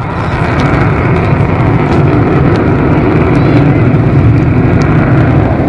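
Avro Vulcan jet bomber's four Rolls-Royce Olympus turbojets passing overhead, a loud, deep jet roar that swells up, holds, and eases off near the end.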